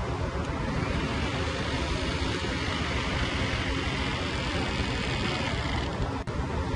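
Steady low rumble of heavy machinery. Over it a whirring hiss from a hose-fed pistol-grip tool coupled to a casing running tool comes in about half a second in, swells, and cuts off near six seconds in, followed by a sharp click.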